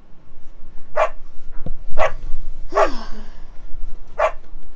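Dog barking: four short, sharp barks spaced unevenly, about one a second.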